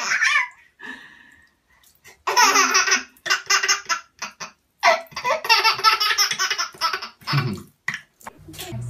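A baby belly-laughing in several bursts of rapid, rhythmic laughs, starting about two seconds in.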